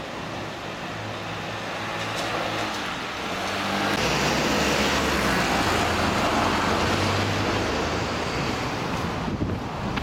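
Road traffic: a car's engine and tyres passing close by, louder from about four seconds in and fading near the end.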